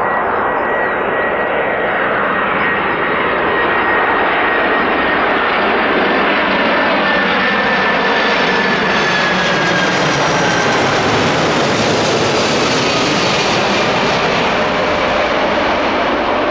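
Four-engined Boeing 747 freighter on final approach with its landing gear down, passing low overhead: steady loud jet engine noise with a high whine that slowly falls in pitch. The sound grows brighter and sharper about two-thirds of the way through as the plane comes over, then eases as it moves away.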